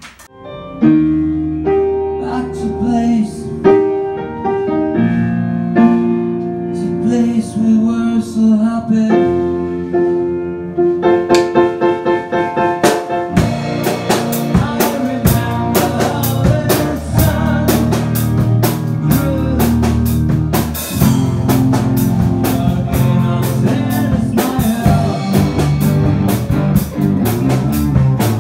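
Rock band playing in a rehearsal: held chords over a bass line for about the first twelve seconds, then the drum kit comes in and the full band plays on.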